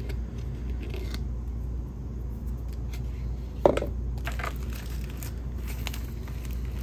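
Plastic yogurt cup and a thin peeled shell of cured epoxy being handled: light crinkling and clicking, with one sharp knock a little under four seconds in as the cup is set down on the wooden bench. A steady low hum runs underneath.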